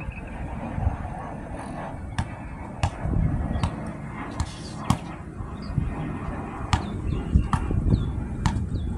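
Basketball bouncing on an outdoor hard court: sharp slaps at uneven intervals, about eight in all, over a steady low rumble.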